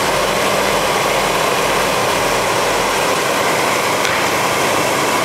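John Deere 772D motor grader's diesel engine running steadily as the machine drives along, its blade pushing a windrow of coarse gravel.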